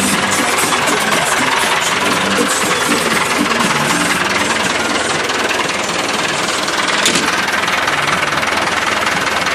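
Massey Ferguson 275 tractor's diesel engine running steadily at close range, its level constant throughout.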